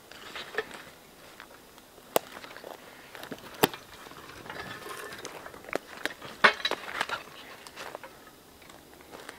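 Footsteps through forest undergrowth: ferns and brush rustling with scattered sharp snaps of sticks underfoot, the loudest about six and a half seconds in.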